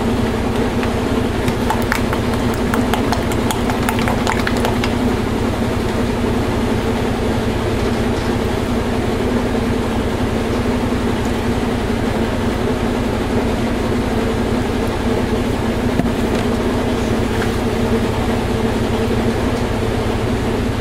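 Washing machine on a long spin cycle, making a steady mechanical drone with a constant hum. For a few seconds near the start there is a quick run of light clicks and taps from a spatula stirring soap batter in a plastic pitcher.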